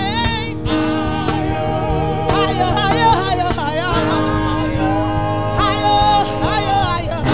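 Gospel worship singing: a lead singer sings into a microphone with wavering runs, over a band holding steady low chords.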